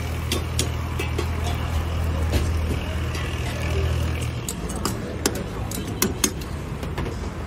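Busy street-food cooking: metal ladles and spatulas clinking against steel karahi woks in sharp irregular clanks, over a noisy background. A steady low hum stops about four and a half seconds in.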